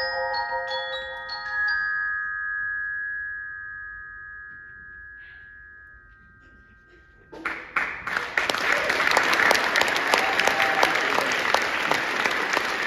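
Mallet percussion (marimbas, vibraphones and bells) plays a few last high struck notes, then lets a final chord ring and die away over about five seconds. About seven seconds in, the audience breaks into applause that goes on to the end.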